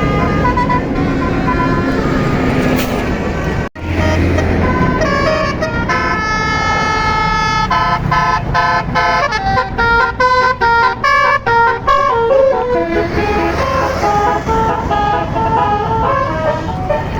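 Tour bus basuri telolet horn, a roof-mounted multi-trumpet musical air horn, playing a tune of short, changing notes. The sound cuts out abruptly for a moment about four seconds in, and the notes turn choppy and staccato around the middle.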